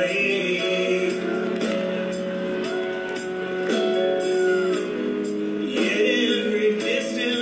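Live band music recorded at a rock concert, with singing over sustained notes and a steady beat of high percussion.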